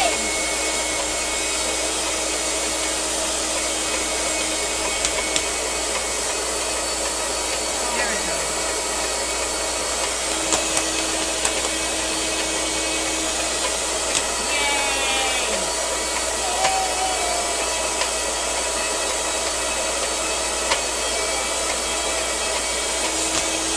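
Nutribullet blender running steadily, grinding sesame seeds into tahini, with a few light clicks from the jar.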